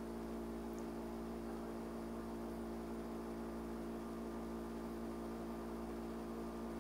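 Steady electrical hum with several even tones and a faint hiss underneath, unchanging throughout: background noise of the recording chain.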